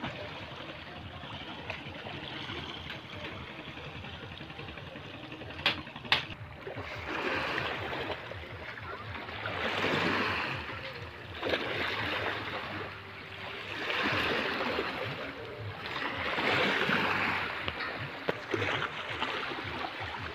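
Small waves washing against a rocky seawall, each swell rising and falling back every two to three seconds. Two sharp clicks about six seconds in.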